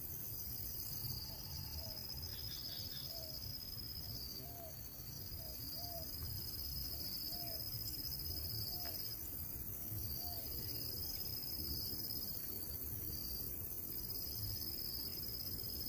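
Insects trilling in a steady, high, even tone that dips briefly now and then. A faint, short, low note repeats about eight times in the first ten seconds.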